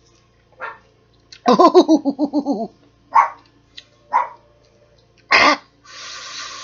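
A woman reacting to the burn of ghost pepper chocolate: a loud, pulsing, pitched vocal outburst, then three short coughs and a breathy exhale near the end.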